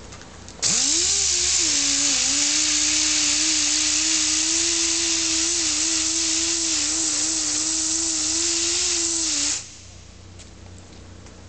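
High-speed handheld grinder spinning up less than a second in, then running steadily with a loud hiss for about nine seconds as it cuts into thick body filler (bondo) on a car body panel, before stopping.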